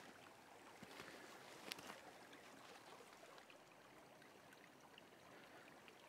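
Faint, steady rush of a stream flowing, with a couple of faint footsteps in the first two seconds.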